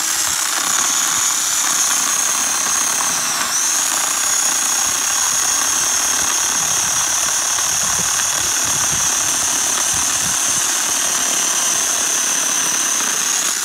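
Cordless electric chainsaw running steadily as it cuts through a round wooden fence post. Its high motor whine dips briefly in pitch about three and a half seconds in.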